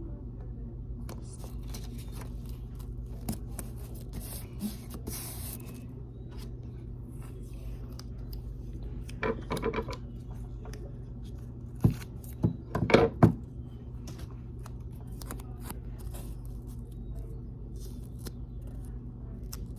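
Paper and tape being handled at a table, with rustling and small clicks, and two louder bouts of scissor snips and clicks near the middle, over a steady low hum.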